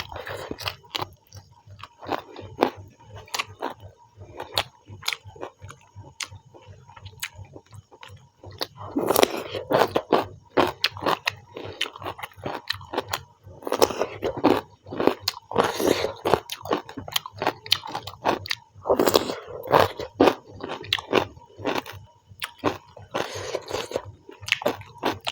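Close-up eating sounds: a person chewing and biting rice with chicken, wet mouth clicks and smacks, with louder bursts of chewing every few seconds.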